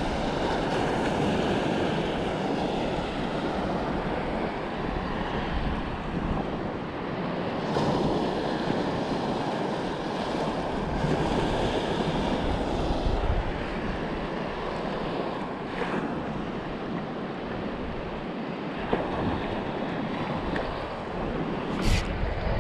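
Small surf waves washing in the shallows, mixed with wind buffeting the camera microphone. Near the end there is a brief, sharper brushing knock as a shirt sleeve sweeps across the camera.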